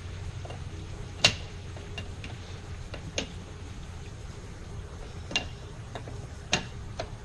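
Sharp, irregular metal clicks and taps from inside the door's stile as a hand fishes for the broken flush bolt, the loudest about a second in, over a steady low hum.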